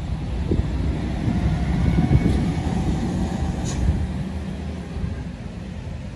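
Isuzu truck's diesel engine rumbling as the truck comes down the bend loaded with sugarcane. It swells to its loudest about two seconds in, then fades, with a brief sharp sound about three and a half seconds in.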